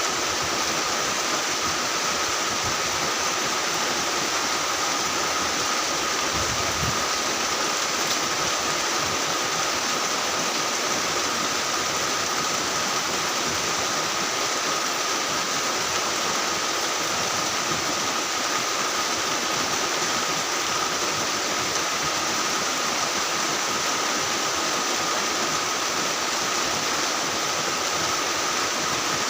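Heavy rain falling steadily, an even rushing hiss with no breaks. A faint steady high tone runs through it.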